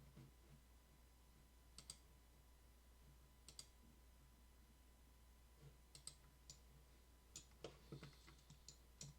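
Faint computer mouse clicks, a single click about 2 s in and another about 3.5 s in, then a quicker run of clicks through the last few seconds, over a quiet, steady low hum.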